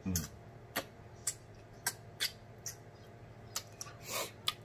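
Wet lip smacks and sucking clicks from licking hot sauce off the fingers while eating pig feet, about eight short smacks spread out, one slightly longer slurp near the end. A brief hummed "mm" at the start.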